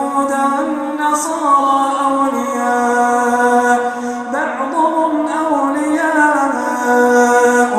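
One male voice chanting the Quran in melodic tajweed style, holding long notes that bend slowly up and down, with a new phrase starting about halfway through.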